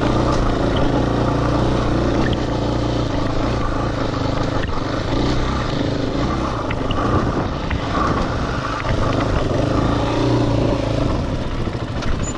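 Off-road dirt bike engine running steadily as the bike rides over slickrock rock ledges, heard close up from a camera mounted on the handlebars.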